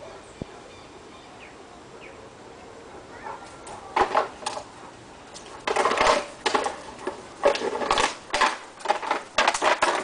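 Empty plastic bottle crackling and crunching in a Great Dane's jaws as it bites and tosses it, in a run of loud, irregular crackles starting about four seconds in.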